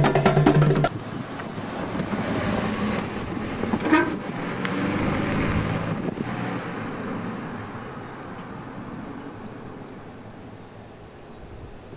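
Drum music cuts off abruptly just under a second in; then a car passes by, its engine and tyre noise swelling and fading away, with a brief high chirp about four seconds in.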